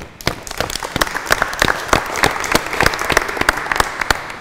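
A group of people applauding: a dense patter of hand claps that swells and begins to die away near the end.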